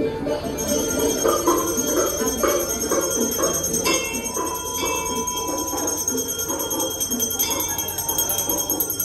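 Temple bells ringing over and over, a bright, shimmering clang struck afresh every second or so, over the murmur of a crowd.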